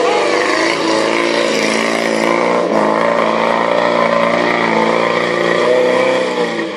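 Suzuki 4x4's engine revving hard under load as the vehicle pulls through deep mud, its pitch wavering with the throttle and rising slightly before the sound fades near the end as the vehicle moves away.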